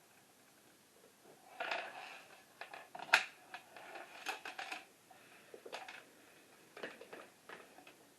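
Handling noises while unpacking: irregular clicks, taps and short rustles of packaging and parts being moved, with one sharp click about three seconds in.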